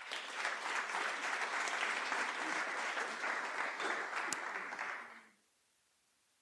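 Audience applauding steadily for about five seconds, then cutting off suddenly.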